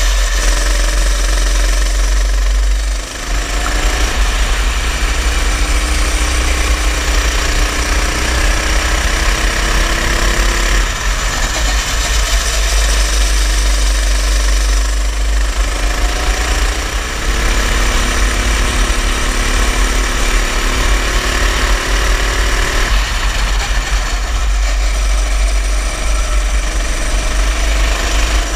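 Go-kart engine revving, its pitch climbing for several seconds and then dropping back as the throttle comes off, about four times over, with a heavy low rumble underneath.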